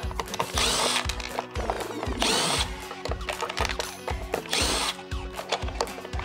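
Milwaukee cordless driver spinning screws in a plastic headlight housing, in three short bursts about a second and a half apart.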